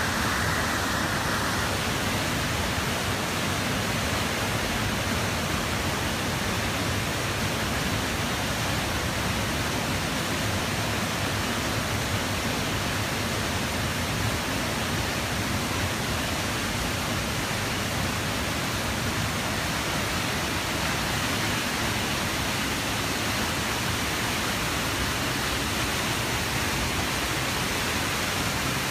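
Steady rushing of a fast-flowing creek, an even hiss of water that holds unchanged throughout.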